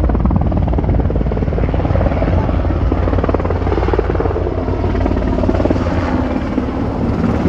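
Black Hawk military helicopter flying low overhead, with a loud, steady rotor beat and turbine noise.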